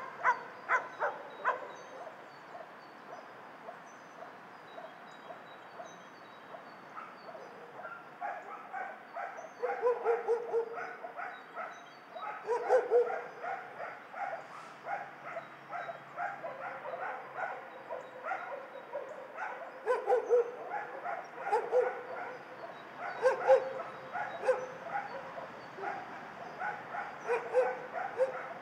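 Shelter dogs barking, several at once with overlapping barks. The barking comes in bursts, thinning out for a few seconds near the start and then flaring up again repeatedly.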